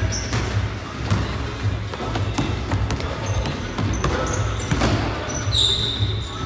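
Music with a steady low beat echoing in a gym, over a basketball bouncing and sneakers squeaking on the hardwood court. The sharpest squeak comes about five and a half seconds in.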